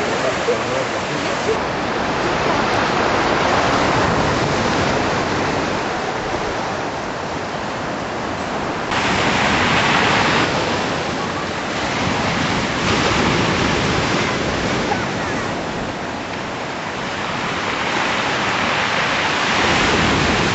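Rushing water: a steady roar that swells louder several times, most strongly about nine seconds in.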